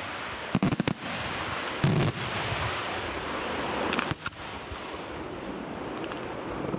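Aerial fireworks shells bursting overhead: a quick cluster of sharp reports just under a second in, a heavier boom at about two seconds, and a few more reports just after four seconds, with a dense steady hiss of burning stars between them.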